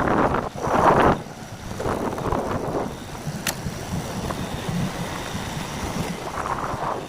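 Wind buffeting the microphone in swelling rushes over the steady low rumble of a moving vehicle, with a single sharp click midway.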